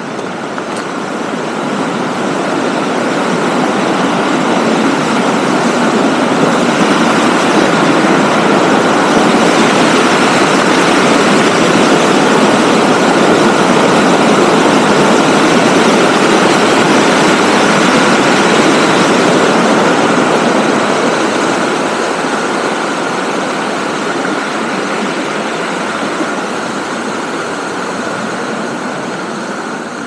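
Shallow stream rushing and tumbling over rocks in white water, a steady loud rush that grows louder over the first several seconds, holds, then fades in the last third.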